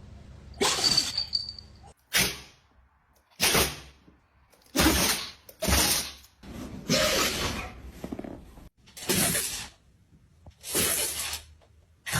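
Dogs sneezing, about eight short, sharp sneezes one after another with brief pauses between them.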